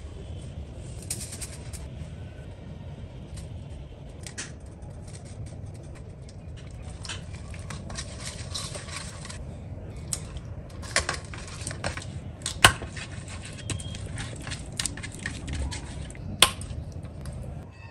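Hand mixing spice masala in a stainless steel plate and rubbing it onto raw fish steaks: scattered clinks and taps against the steel, with two sharper knocks in the second half, over a low steady hum.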